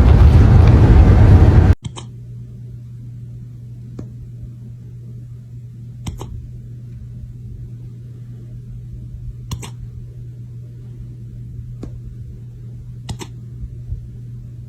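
A loud noisy passage cuts off abruptly about two seconds in. Then comes a steady low hum, with short sharp hics every few seconds: a pet hiccupping.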